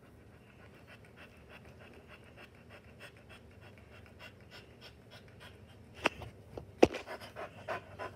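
A dog panting steadily. About six and seven seconds in come two sharp knocks, the second the loudest sound, followed by louder, irregular panting and shuffling.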